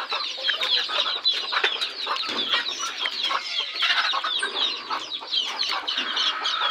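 A flock of desi (country) chickens clucking, many short calls overlapping without a break.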